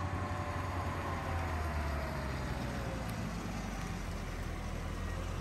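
Mercedes-Benz SLK 55 AMG's V8 engine running as the car rolls up at low speed: a steady deep rumble, with a few engine tones easing down in pitch over the first three seconds as it slows.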